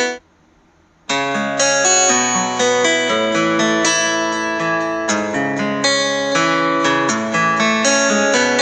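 Background music of plucked guitar notes. It cuts out for about a second near the start, then resumes.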